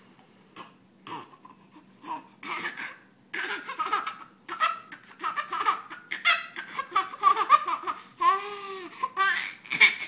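Baby laughing hard, in repeated bursts of belly laughs that start about two seconds in and come thicker and louder. A drawn-out squeal of laughter comes near the end.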